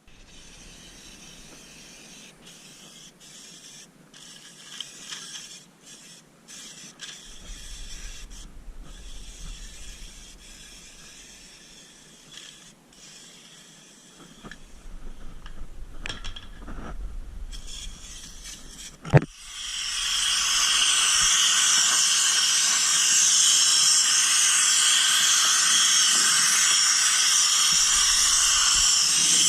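Scattered clicks and scraping handling noises, then a sharp click and a compressed-air spray gun hissing steadily as it sprays rust-proofing compound.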